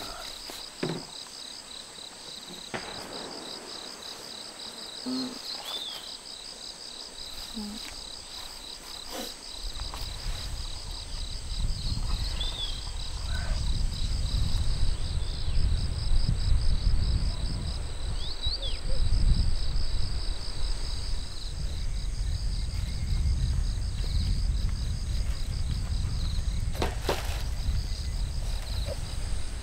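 Insects trilling steadily, a fast pulsing chirr. From about a third of the way in, a loud, uneven low rumble sets in and becomes the loudest sound, with a few faint clicks.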